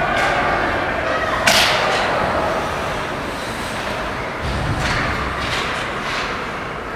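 Ice hockey play: one sharp, echoing crack about one and a half seconds in, then a few lighter clacks and scrapes from sticks, puck and skates, over steady rink noise.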